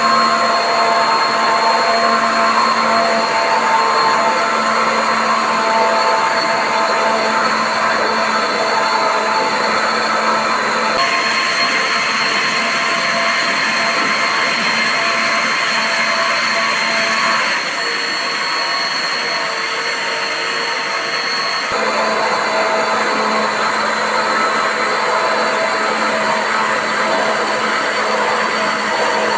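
JetX-80V3 80 mm water-jet thruster running: a steady motor whine over the rush and splash of its jet churning the water. The sound shifts abruptly a few times and is briefly a little quieter past the middle.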